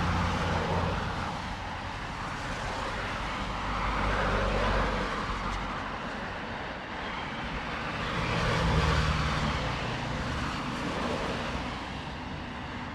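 Street traffic: vehicles pass one after another, swelling and fading about three times, loudest just after the start, around four and a half seconds in and around nine seconds in, over a steady tyre and engine hum. The pass near nine seconds has a deeper engine hum, like a heavier vehicle.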